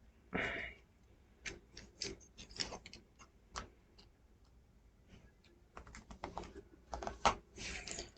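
Small plastic model-kit parts clicking and scraping against each other as they are handled and fitted together, with one longer scrape about half a second in and a quicker run of clicks near the end.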